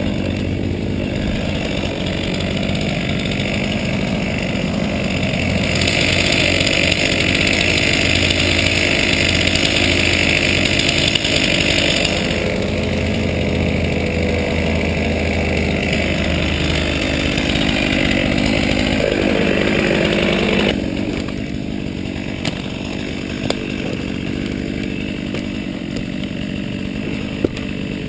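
Chainsaw running close by, louder and higher for about six seconds in the middle as it is throttled up, then dropping to a quieter running for the last several seconds, with a few sharp clicks near the end.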